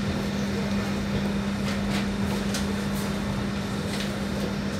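BN coast tram running, heard from aboard: a steady low hum over an even rumble, with a few faint ticks.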